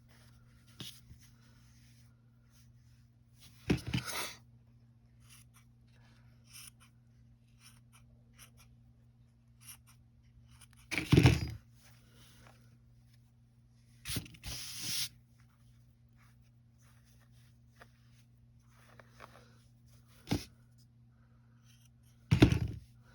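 Scissors snipping an acrylic-yarn gnome beard during trimming, with yarn rustling: about five brief, separate snips and rustles spaced several seconds apart, over a steady low hum.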